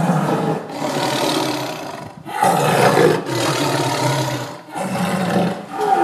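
Tiger roaring: a series of long, rough, growling roars with short breaks between them.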